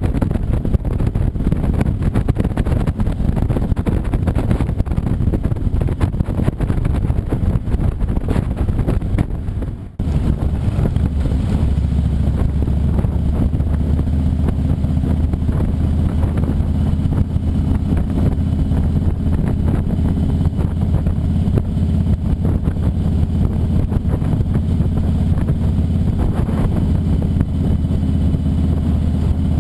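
Motorcycle engine running on the move: a rough, noisy drone with road noise, then after a sudden cut about ten seconds in, a steady, even low engine drone.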